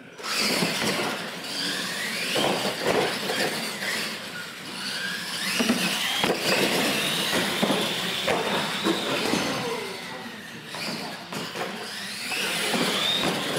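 Two R/C monster trucks racing: their motors whine, rising and falling in pitch as they accelerate and let off, over the clatter and knocks of the trucks on the concrete and ramps. The sound starts suddenly just after the start, at the launch.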